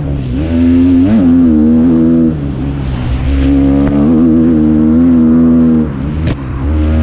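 KTM SX-F 250's single-cylinder four-stroke engine running hard at high revs under way, with the throttle backing off for a moment about two and a half seconds in and again near six seconds before it picks back up. A short rising squeak sounds about six seconds in.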